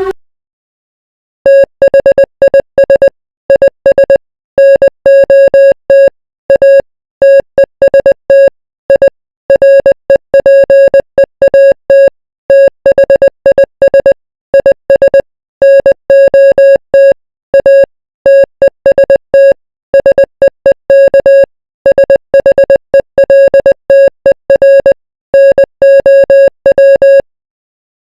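A single buzzy electronic tone, switched on and off in short and long beeps in an uneven pattern like Morse code.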